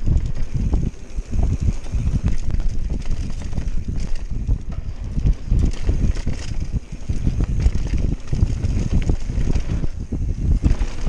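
Canyon Spectral full-suspension mountain bike running fast down a dirt trail: a steady rumble of tyres on packed dirt with constant rattling and knocks from the bike over bumps, under heavy wind noise on the camera microphone.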